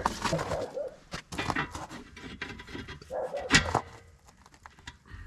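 Metal clinks and knocks as a grader wheel's lock ring is worked into place with pry bars, the loudest knock about three and a half seconds in, with short vocal sounds in between.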